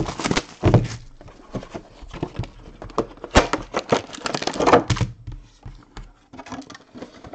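Clear plastic shrink wrap being torn and crinkled off a trading-card box, in irregular crackling bursts loudest about a second in and again from about three to five seconds in, with a few sharp knocks as the box is handled.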